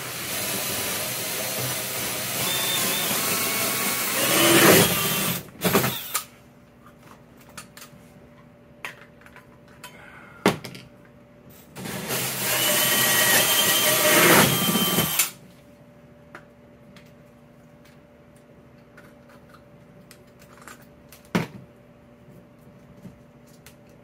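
Cordless drill with a hole saw cutting through a plastic tote lid: one run of about six seconds, then a second shorter run of about three seconds starting about twelve seconds in. A few sharp knocks fall in between, over a faint steady hum.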